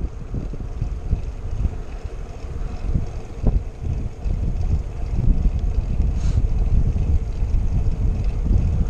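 Wind buffeting a GoPro's microphone on a moving road bike: a dense, uneven low rumble that grows louder about five seconds in.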